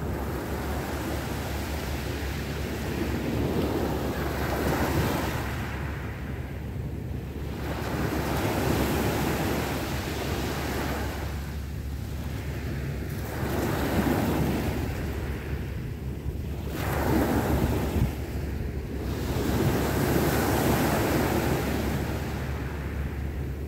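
Small sea waves washing onto the shore, the surf swelling and fading every few seconds, over a steady low rumble of wind on the microphone.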